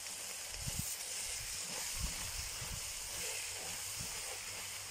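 Meat, onion and carrot with spices frying in a cast-iron kazan, a steady sizzling hiss as they are stirred, with a few soft low thumps. This is the pilaf base browning before the rice goes in.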